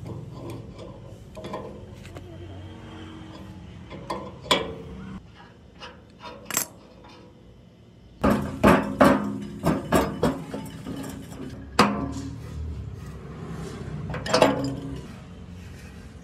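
Metal tools and parts clinking and knocking against each other in scattered strikes, with a busy run of knocks about eight to ten seconds in, over a steady low hum.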